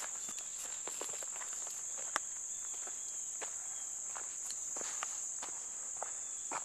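Footsteps walking along a path under a steady, high-pitched chorus of insects, crickets or similar, with one sharp click about two seconds in.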